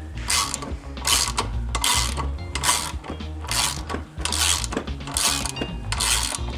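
Socket ratchet clicking through repeated swings, about one every 0.8 seconds, backing off the threaded nut of a valve spring compressor. The compressed valve spring is being let up so its retainer seats on the keepers.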